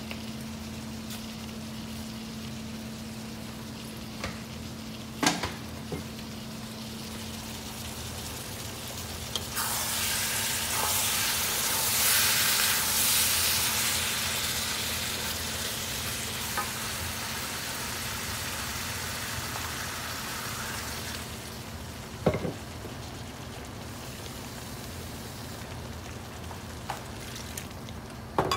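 Food sizzling in a hot pan: the sizzle starts suddenly about ten seconds in, is loudest a few seconds later, then dies away about twenty seconds in. A steady low hum runs underneath, with a few sharp knocks of kitchen utensils.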